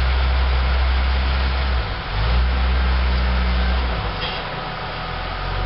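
Engine of a rock-crawling Jeep Cherokee XJ working under load as it climbs over boulders. Its low drone breaks off briefly about two seconds in and drops away again about four seconds in as the throttle eases, over a steady hiss.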